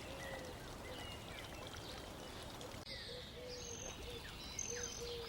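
Faint background bed of steady hiss with scattered short, high chirps and brief held tones.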